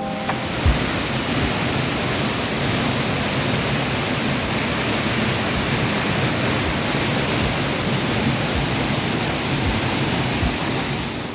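Waterfall: a steady, loud rush of falling water, with a few short low thuds underneath.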